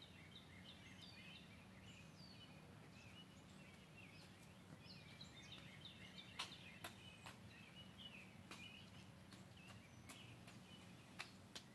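Faint birdsong: many short chirps and whistled notes from several birds, over a low steady background hum, with a few faint clicks in the second half.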